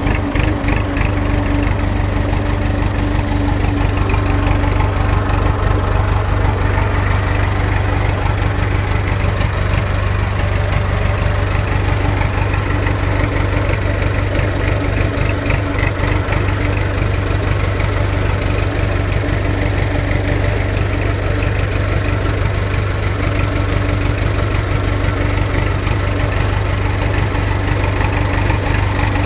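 Massey Ferguson 285 tractor's diesel engine running steadily under way, a constant low engine note with no change in speed.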